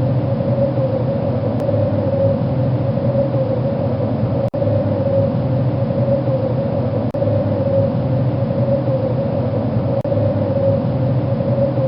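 Wind sound effect: a steady rushing with a constant whistling tone over a low rumble. It cuts out for an instant about every two and a half to three seconds.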